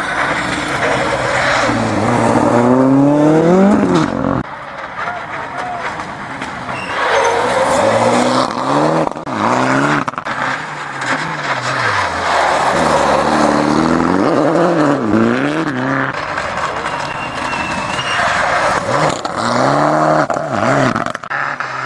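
Rally cars taking a hairpin at speed: engines revving hard, the pitch climbing and dropping again and again through gear changes and braking. Tyres and loose gravel scrabble as the cars slide through the corner, cutting the inside and throwing up dust.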